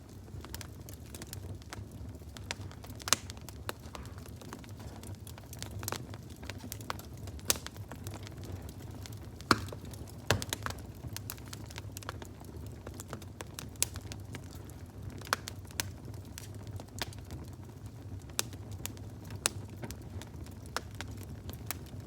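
Fire crackling: irregular sharp pops and snaps over a steady low rumble, with a few louder pops.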